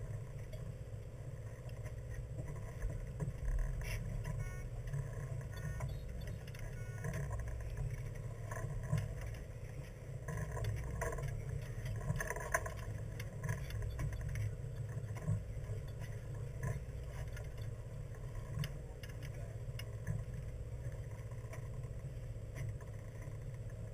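Low steady rumble aboard a party fishing boat at sea, with scattered faint clicks and knocks.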